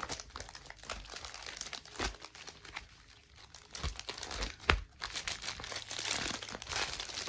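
Pokémon booster packs in foil wrappers crinkling and rustling as they are shuffled together by hand, with irregular clicks and scrapes that grow busier and louder in the second half.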